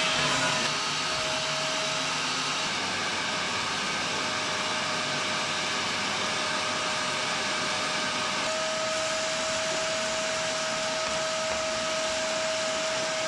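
Vacuum cleaner running steadily with a constant whine, its pitch stepping up slightly about eight seconds in.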